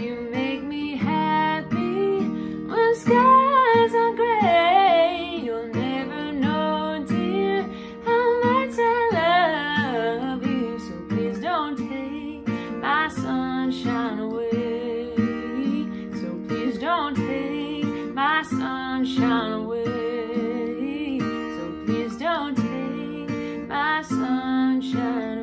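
A woman singing to her own strummed acoustic guitar, holding some notes with a waver.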